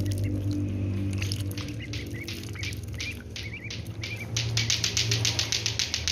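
Crested ducklings peeping softly while dabbling in a rain puddle, their bills clicking and slurping in the water; over the last two seconds the clicks settle into a fast, even patter of about seven a second. A low steady hum runs underneath.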